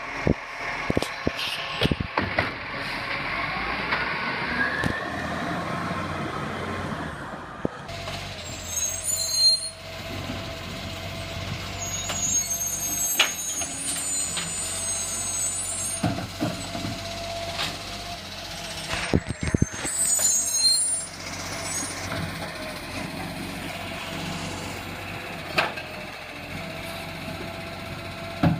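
Garbage truck at work: its diesel engine running, with scattered knocks and clanks and short air-brake hisses.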